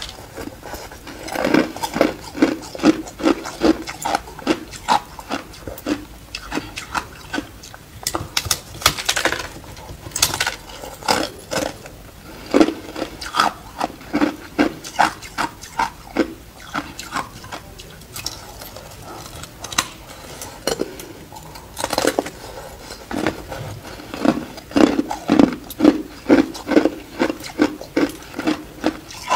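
Thin, flaky ice being crunched and chewed: crisp crunches a few times a second, coming in runs with short pauses between.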